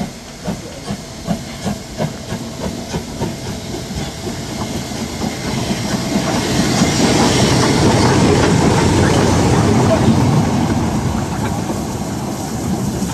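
Steam locomotive 99 7232-4, a Harz narrow-gauge 2-10-2 tank engine, moving off with sharp exhaust chuffs about two to three a second. It then passes close by with a loud rush of hissing steam from the cylinders and the rumble of its wheels and motion, fading a little near the end.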